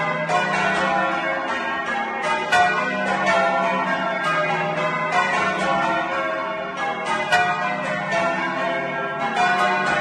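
A ring of eight church bells, two of them restored Bilbie bells on new clappers, rung full circle and heard from inside the bell chamber. The strikes follow one another several times a second over long, overlapping ringing tones.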